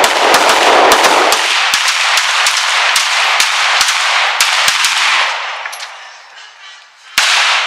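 Two 9mm pistols, a Springfield XD and a Ruger SR9c, fired together in rapid, overlapping shots for about five seconds, then one more shot near the end.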